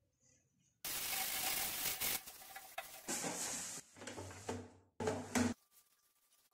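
Kitchen cleaning noise in short spliced clips: about a second in, a loud steady hiss of scrubbing, then shorter scraps of rubbing and handling that cut off abruptly, fading out near the end.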